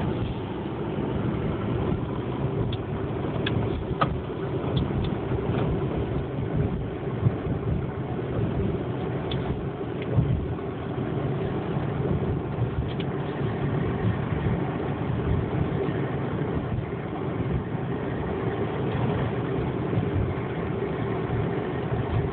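Car engine and tyre noise heard from inside the cabin of a moving car, steady, with a few short knocks.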